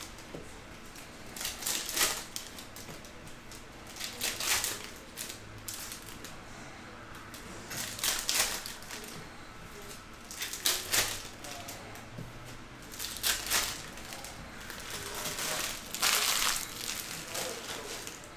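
Trading-card pack wrappers being torn open and crinkled, in short crackling bursts every two to three seconds, with cards shuffled between them.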